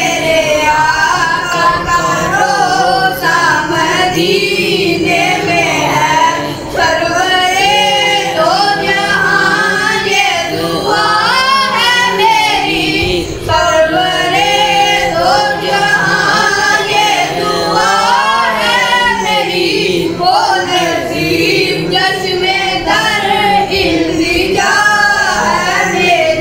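A boy's high voice singing a naat into a microphone, carrying long wavering, ornamented notes.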